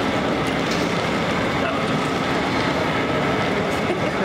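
Steady, even rumbling ambience of a busy airport terminal, with no clear speech.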